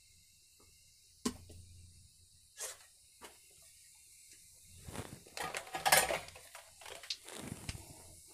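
Whole spices such as a cinnamon stick frying in hot oil in a kadai: scattered crackles and pops that grow into louder bursts of sizzling past the middle, with a sharp click a little over a second in.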